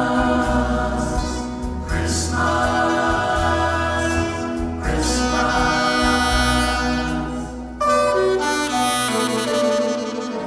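Saxophone playing a solo of long held and changing notes over a recorded backing track with a steady bass line.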